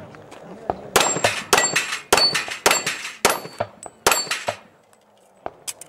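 Pistol fired in a fast string of about a dozen shots, with steel target plates clanging and ringing as they are hit. The shooting stops about four and a half seconds in.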